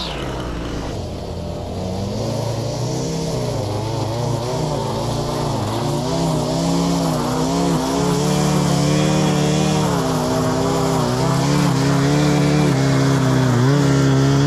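Two-stroke gas string trimmer engine running, its pitch rising and falling as the throttle is worked.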